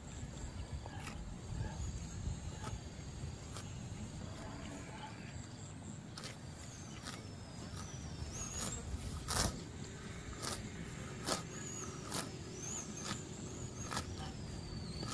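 Cattle grazing close by, tearing grass in short sharp rips at irregular intervals of about a second; the loudest comes a little past halfway. Under them runs a low rumble, and thin high wavering whistles come in the second half.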